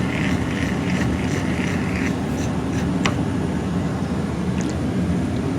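Garden hose being unscrewed from a gas water heater's drain valve: a hiss for about the first two seconds, then a sharp click and later a couple of faint ticks from the fitting. All of it sits over a steady low rumble.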